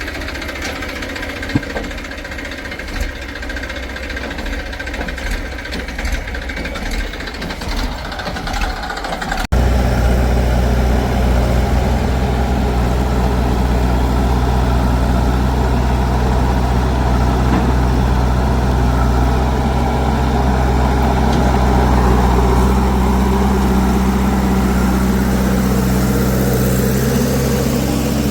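Diesel engine of a backhoe loader or tractor running steadily, with a few knocks in the first third. After an abrupt cut about nine seconds in, a closer engine runs louder and steadier, its pitch rising slightly near the end.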